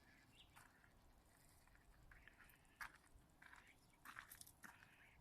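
Near silence: room tone with a few faint clicks and rustles, a short cluster of them a little past four seconds in.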